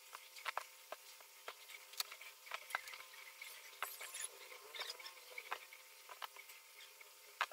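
Scattered small clicks and taps of plastic Tamiya Mini 4WD kit parts, tyres and wheels being handled and fitted on a table, sped up so they come quick and high.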